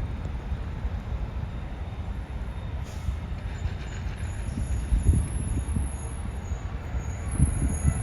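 Low rumble of distant jet engines, with gusts of wind buffeting the microphone. A faint high whine joins about four seconds in.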